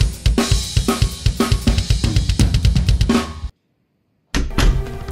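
Background music: a fast, steady drum-kit beat with deep bass drum and cymbals. It cuts off to silence about three and a half seconds in and comes back near the end with a few loud hits.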